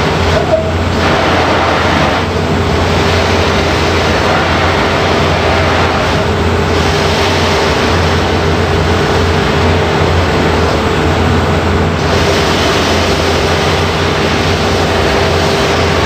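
Robotic buffing machine's polishing wheel running, with a metal femoral knee implant pressed against it by the robot arm. It makes a steady low hum and a dense hiss that dims and brightens a few times as the part is turned against the wheel.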